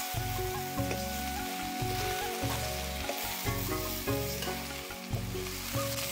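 Food sizzling as it fries in a hot pan, with a few short clicks as it is stirred. Background music with a changing melody plays over it.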